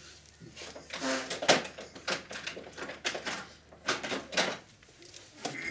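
A screwdriver working a small screw out of a cassette recorder's chassis: a series of short clicks and scrapes at uneven intervals, with a brief squeak about a second in.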